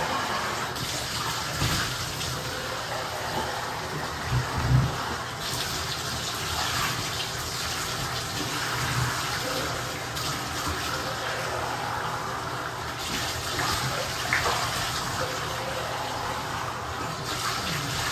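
Water running and splashing in a bathtub as a dog is bathed, a steady rushing with a couple of dull thumps about four to five seconds in.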